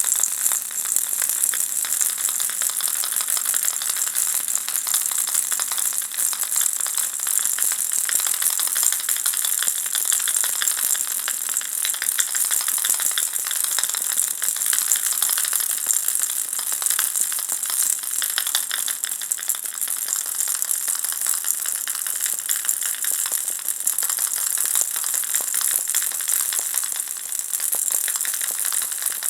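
Ball-shaped baby rattle being shaken continuously, with the small beads inside making a dense, even, high-pitched rattling patter.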